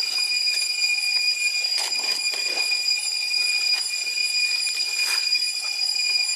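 Steady, shrill drone of insects in the forest canopy, one unbroken high tone, with a few faint rustles about two seconds in and again near five seconds.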